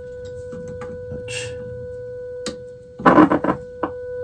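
Steady test tone from a signal generator coming through a 1936 Zenith 6S27 tube radio's speaker during IF alignment, with a few faint clicks. About three seconds in there is a brief louder burst of sound.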